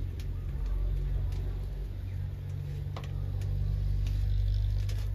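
A small engine or motor running steadily with a low hum, with a few light clicks and knocks over it.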